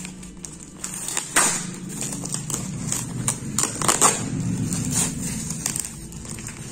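Brown packing tape and cardboard being torn and peeled off a parcel by hand: irregular crackling rips and crinkles, the sharpest about one and a half seconds in and again about four seconds in.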